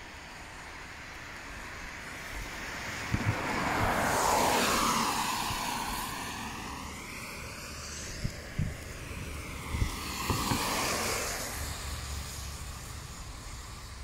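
Two vehicles passing on wet asphalt, their tyres hissing on the wet road: one swells up and fades about four seconds in, a second about ten seconds in.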